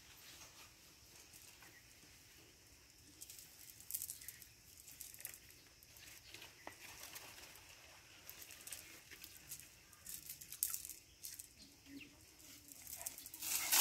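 Faint rustling and light crackling of a nylon cast net being gathered and handled, with scattered small clicks. Near the end a louder swish rises as the net is thrown.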